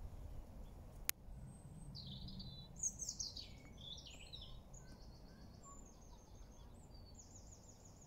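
Faint wild birdsong: a run of high chirps and quick rattling phrases over a low background rumble, with one sharp click about a second in.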